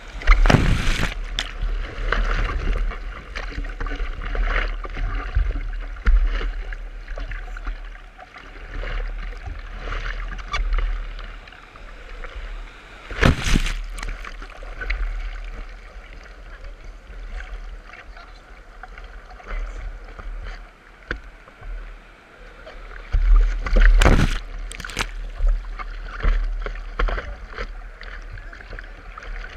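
Sea water splashing and sloshing against a surfboard as hands paddle through the surf, with a loud rush of breaking whitewater washing over the board about 13 seconds in and more sharp splashes near 24 seconds. A low rumble of moving water and wind buffets the microphone.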